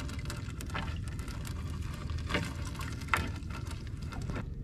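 Wet fishing net being hauled by hand into a wooden outrigger boat: water dripping and splashing off the net, with rustling and scattered knocks, the sharpest about three seconds in, over a steady low rumble.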